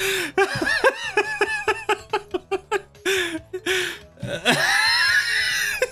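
A person laughing in rapid high-pitched bursts, several a second, breaking into one long drawn-out laugh that rises and then falls near the end.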